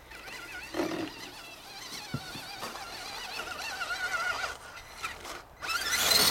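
Axial SCX10 RC crawler's 21-turn Traxxas brushed electric motor and drivetrain whining, the pitch wavering up and down with the throttle as it works through snow. Near the end it goes to full throttle with a much louder, harsh whine.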